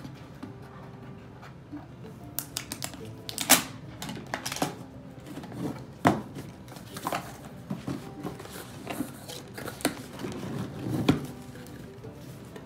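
A cardboard mystery box being opened and its contents handled: irregular sharp clicks, snaps and rustles, the loudest about three and a half seconds in.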